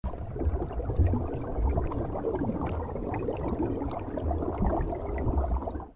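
Underwater sound effect: a low, uneven rumble with bubbling.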